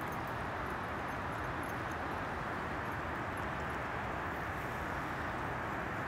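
Steady, unbroken rush of the Missouri River's current flowing past.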